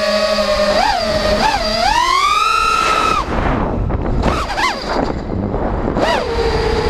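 5-inch FPV quadcopter's brushless motors and propellers whining, the pitch rising and falling with each throttle blip. About two seconds in the whine climbs and holds high, then cuts off sharply as the throttle is chopped for a flip, leaving rushing wind noise with brief throttle stabs. Near the end it settles into a steady, lower whine.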